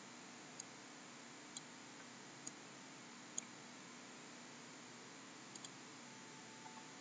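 Computer mouse clicks over a faint steady hiss: single clicks roughly a second apart, the loudest about halfway through, then two quick pairs near the end.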